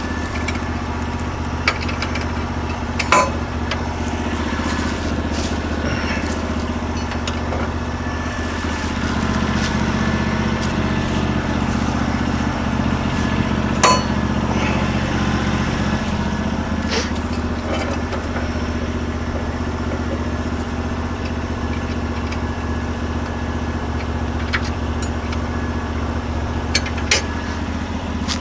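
Norwood LM29 portable bandsaw mill's 16 hp engine running steadily as the blade cuts through a log, with a few sharp clicks and knocks.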